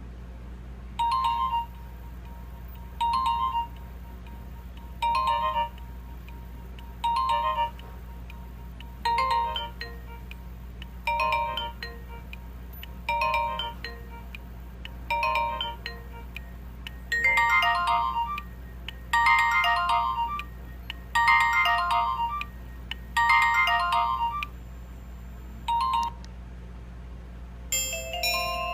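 Nokia 2310 ringtone playing: a short melodic phrase repeats about every two seconds and grows fuller, with extra notes, about two-thirds of the way through. A steady low hum runs underneath, and a different ringtone starts right at the end.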